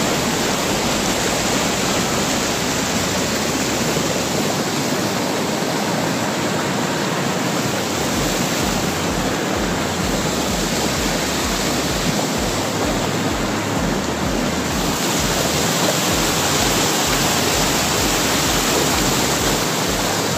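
Water rushing steadily over a low weir and around rocks, a white-water cascade.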